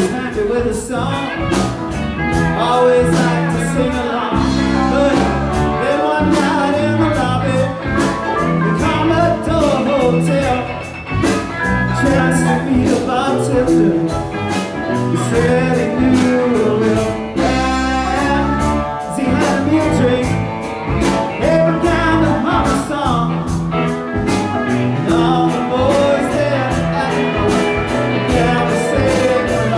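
Live blues-rock band playing loudly: electric guitars, organ and drum kit keeping a steady beat, with no words sung.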